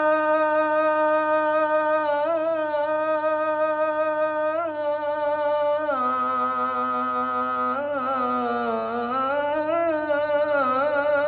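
A young man's solo voice chanting the Islamic call to prayer (azan), drawing out the end of 'hayya 'ala s-salah' in one long unbroken ornamented phrase. The note is held with small turns, drops lower about halfway through, dips further and climbs back near the end.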